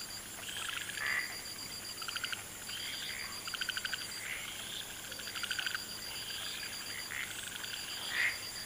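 Frogs calling in a chorus: short rattling calls and rising chirps repeating about once a second, over a steady high-pitched trill.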